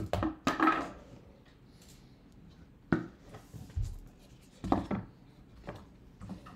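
Thin steel BGA stencils and the blue magnetic base of an iBGA 13 Max reballing platform being handled and set down in their box: scattered, irregular clicks and light knocks of metal on metal, several close together at the start and the rest spaced a second or so apart.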